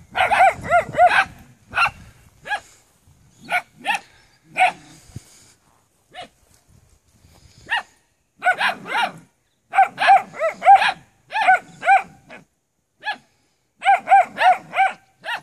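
Maremma sheepdog puppies barking: high-pitched yaps in quick runs of several, with short pauses between.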